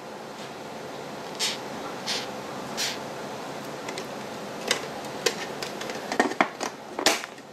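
Quiet handling noise around a plastic beetle breeding case holding soil and a log: a few soft scrapes and clicks over a steady hiss, with a quick run of sharper clicks near the end.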